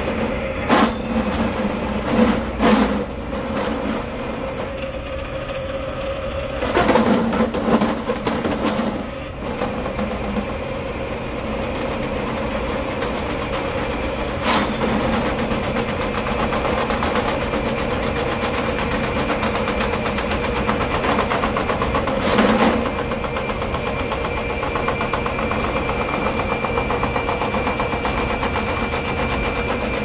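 Electric sectional drain-cleaning machine running steadily, its spinning steel cable being fed down a clogged dishwasher drain line, with several sharp knocks as the cable works along the pipe.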